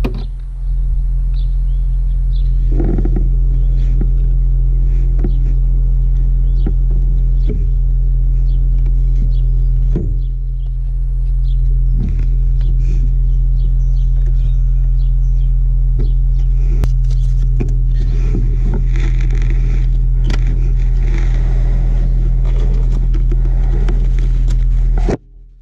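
A steady low rumbling hum runs underneath light clicks, taps and scrapes of hands working a new timing belt onto the sprockets of a 3.5L V6 engine.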